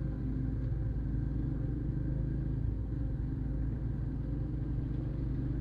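TVS Apache RTR 180's single-cylinder engine running steadily while the motorcycle rides along, with a constant low rumble.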